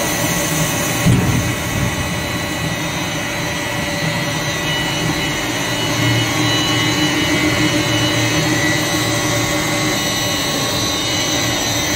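1800 film blowing machine (blown-film extrusion line) running: a steady mechanical hum with several steady whining tones from its motors, with a single knock about a second in.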